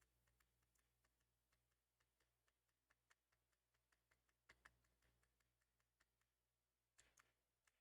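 Near silence with faint scattered key clicks from a Macintosh Plus M0110A keyboard under test, a pair about four and a half seconds in and another pair near the end.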